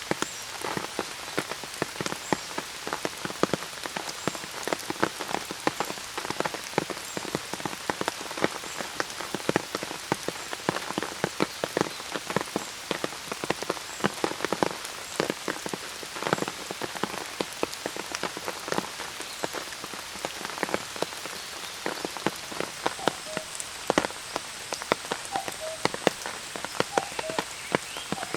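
Steady rain, with dense, sharp, irregular drop hits close by, as on an umbrella overhead. Near the end a thin high tone and a few short chirps come in.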